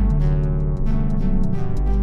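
Instrumental background music with sustained low notes and a regular percussive beat.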